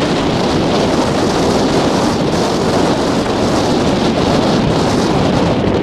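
Wind buffeting the microphone: a loud, steady rushing noise that stops suddenly just after the end.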